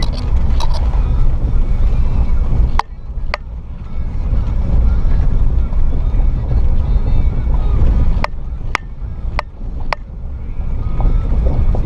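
Lifted 2006 Jeep KJ rumbling along a rough dirt trail at low speed. Sharp knocks sound twice about 3 s in and four more times between 8 and 10 s in.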